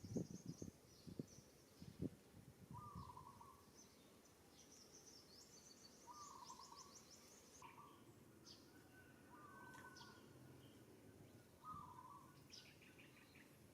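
Faint birdsong: a short low call repeating about every two seconds, over high chirping trills. A few soft thumps come in the first couple of seconds.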